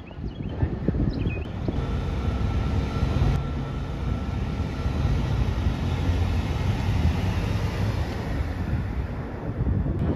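Steady outdoor street noise: a low rumble of traffic with wind buffeting the microphone.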